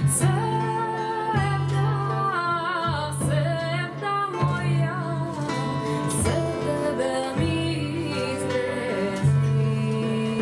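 A female voice singing a Macedonian folk song, with a wavering, ornamented melody over plucked-string accompaniment, and a violin bowing along.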